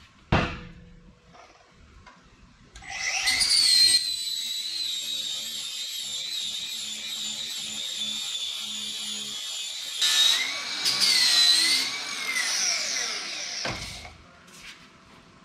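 Handheld power tool, most likely an angle grinder, working on steel box tubing. It spins up about three seconds in to a steady high whine, and from about ten seconds in the pitch sags and wavers as the tool is pressed into the metal. It winds down near the end. A short knock comes just at the start.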